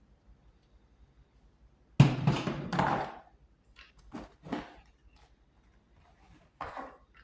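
Wooden parts being handled on a workbench: a sharp knock about two seconds in with a short scrape, then several light taps and clicks.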